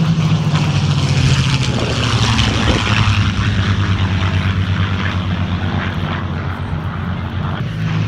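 Two P-51 Mustang fighters' piston engines droning in a low formation flyby, the engine note dropping in pitch as they pass and then running on steadily as they fly away.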